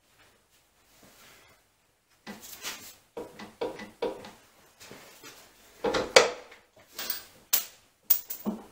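Heavy cast-iron vertical milling head being worked into place on a Kearney & Trecker 2CH horizontal mill: a run of metal-on-metal clunks and scrapes, some with a short ring, starting about two seconds in and loudest near the sixth second.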